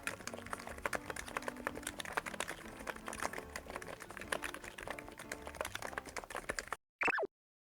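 Fast, continuous typing on a NIZ X99 keyboard with electrostatic capacitive switches and PBT keycaps: a dense, irregular run of key clicks. The typing stops about a second before the end, followed by a short falling sweep.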